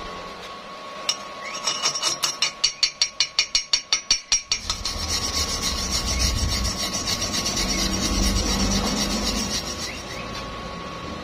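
Wire brush scrubbed over a fresh weld bead on thin steel square tube to clean it. A sharp tap comes first, then quick back-and-forth strokes about five a second, easing into a steadier scrubbing for several seconds.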